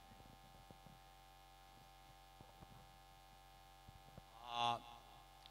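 Steady electrical mains hum from a public-address sound system, with a few faint clicks. About four and a half seconds in, a short burst of a man's voice comes through the system.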